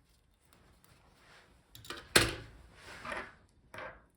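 Handling noise of laptop parts on a bench: one sharp clack a little over two seconds in, then rubbing and a couple of softer knocks as a part is moved and set down.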